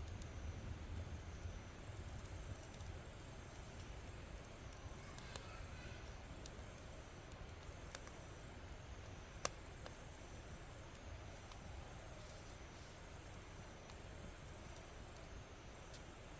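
Insects trilling in repeated high-pitched bursts about a second long, over a low rumble. A single sharp pop comes from the burning wood about halfway through.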